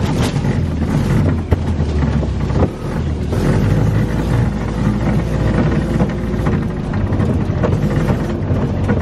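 Golf cart driving through standing corn, stalks crashing and rattling against the cart in many quick knocks over a steady low rumble of the ride.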